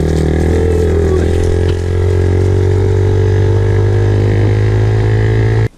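Small 50cc youth off-road vehicle engine running steadily while being ridden, its pitch rising and dipping slightly about a second in. The sound cuts off abruptly near the end.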